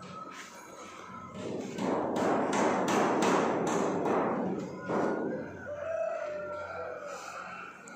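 A run of quick knocks, about three a second, for a few seconds. Near the end, a rooster crows faintly.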